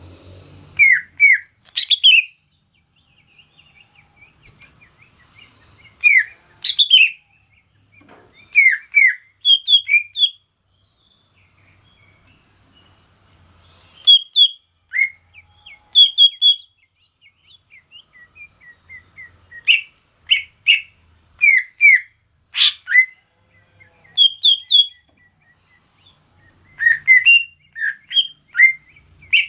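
Cucak ijo (green leafbird) singing: short bursts of two to four loud, sharp, sliding whistled notes, repeated every few seconds. A steady high hiss runs underneath.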